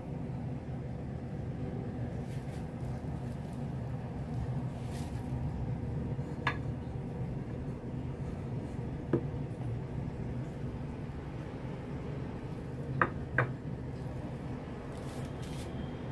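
Kitchen room tone: a steady low hum with four light clicks and knocks, two of them close together near the end.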